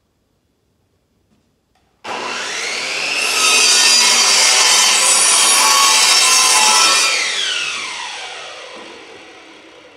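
Electric power saw switched on about two seconds in, its motor whine rising as it spins up, then cutting through a wooden board. Near the middle the motor is let go and spins down with a falling whine that fades out.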